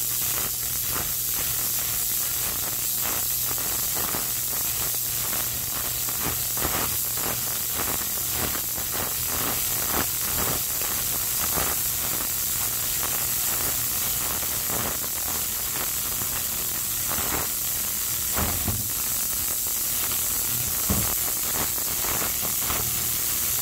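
Ultrasonic dishwasher running in a sink full of water: a steady high hiss over a low hum, with a constant fine crackling from the water. A couple of dull knocks near the end.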